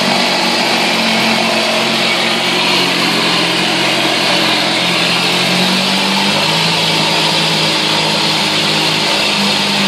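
Mariner 2hp two-stroke outboard running in a test tank, freshly rebuilt with a new crankshaft and bearings, its propeller churning the water. The engine settles to a slightly lower speed about six seconds in.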